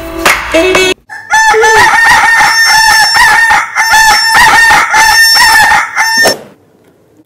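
Chicken sound effect: a loud, fast run of short repeated calls at one steady pitch, starting about a second in and stopping abruptly after about five seconds.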